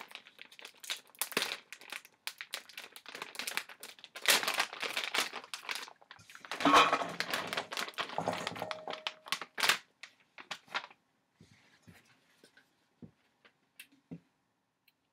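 A plastic bag of Brussels sprouts crinkling and being torn open, then the sprouts tumbling out of the bag into a stainless steel mixing bowl, loudest about seven seconds in. After that the rustling stops and only a few faint clicks are left near the end.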